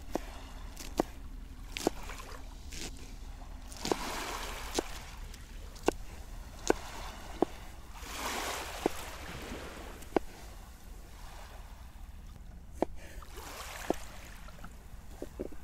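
Large kitchen knife chopping lettuce, greens and tomato on a wooden cutting board: sharp knocks of the blade striking the board, roughly one a second with no set beat. Small waves wash on the shore behind.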